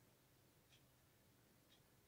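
Near silence: faint room tone with a soft tick about once a second.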